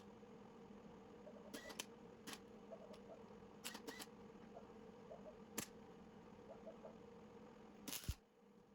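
Faint, irregular clicks over a steady low hum, with a sharper click near the end after which the hum drops away.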